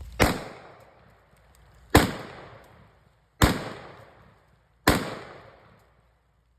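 Four single gunshots, about a second and a half apart, each echoing away for about a second.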